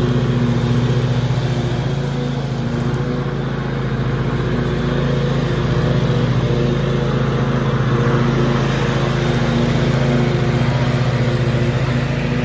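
Zero-turn riding lawn mower's engine running steadily as the mower drives across the lawn.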